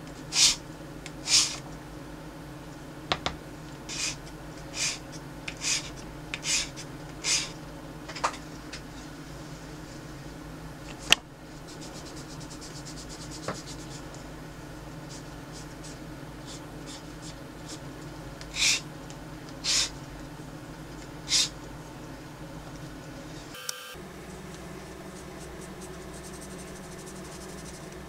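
A wood and resin ring being hand-sanded: short scratchy strokes against a sandpaper-tipped sanding stick, about one a second for the first eight seconds. A sharp click comes about eleven seconds in, then a few more scattered rubbing strokes as the ring is worked with a cloth, over a faint steady hum.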